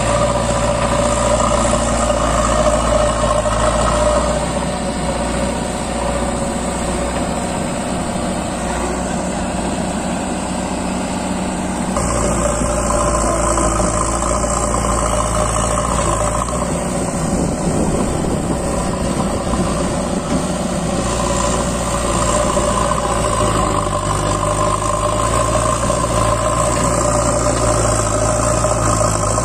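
Diesel engine of a JCB 3DX backhoe loader running steadily. It eases off about four seconds in, comes back up abruptly about twelve seconds in, and picks up again a little past twenty seconds.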